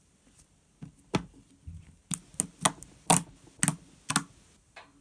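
Gold slime, softened with conditioner, being pressed and poked by fingers. It makes about ten sharp, irregular clicks and pops as air pockets burst, starting about a second in.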